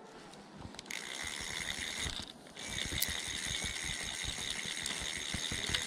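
Fly reel's click-and-pawl ratchet buzzing as line is pulled off the reel, with a short break about two seconds in. Wind buffets the microphone with low thumps.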